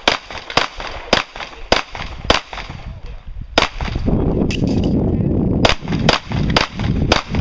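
Handgun shots on a pistol course of fire. A string of single shots comes about half a second apart. After a gap of about two seconds filled with low rumbling noise, the shots come faster, about three a second.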